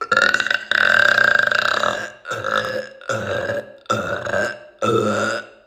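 Loud belching: one long drawn-out burp of about two seconds, then four shorter burps, about one a second.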